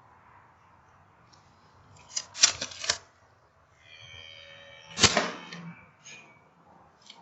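A quick cluster of loud, sharp mechanical clicks about two seconds in, a brief high squeak-like tone, then one louder sharp crack about five seconds in, followed by a few faint clicks.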